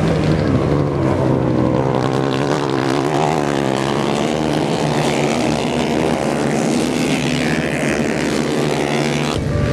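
Several racing motorcycle engines running hard as the bikes go past, the engine notes wavering up and down in pitch.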